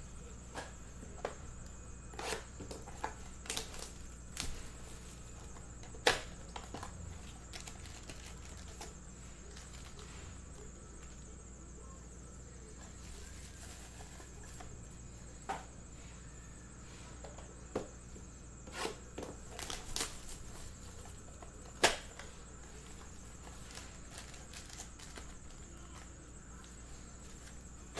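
Scattered crinkles, rips and taps of football trading-card packs and blaster-box packaging being opened and the cards handled, with the sharpest snaps about 6 and 22 seconds in, over a steady low hum.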